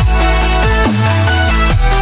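Electronic dance music with a heavy bass line and repeated falling pitch sweeps.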